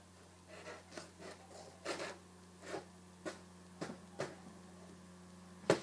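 Pocket knife blade sawing at a paper napkin in about half a dozen short rasping strokes, with a sharp click near the end.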